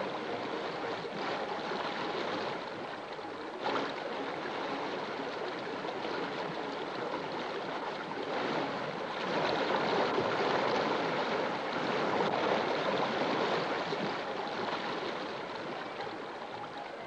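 Steady rushing of running water, swelling louder for a few seconds past the middle, with a single sharp click a little under four seconds in.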